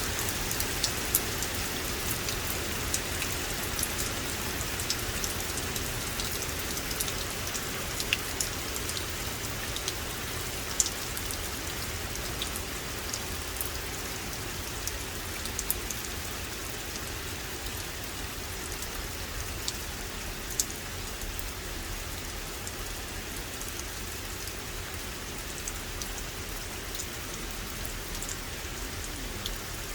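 Steady rain falling on forest, a constant even hiss with scattered sharper ticks of single drops.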